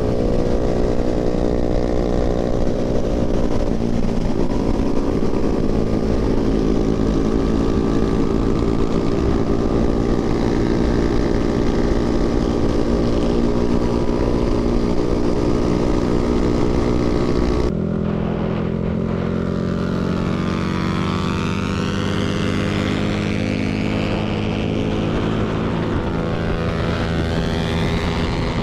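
Motorcycle engine running at a steady cruising speed while riding, with wind rush. About 18 seconds in the sound changes abruptly to a quieter, duller, steady engine note.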